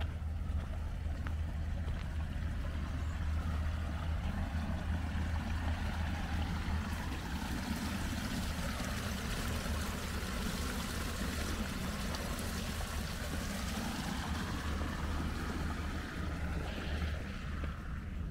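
Wind rumbling on the microphone, with a broad rushing noise that swells over several seconds and fades again.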